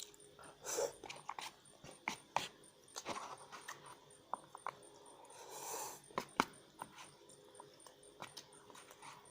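Close-miked eating sounds of someone eating stir-fried instant noodles: irregular wet chewing clicks and mouth smacks, with two longer noisy sounds about a second in and near six seconds.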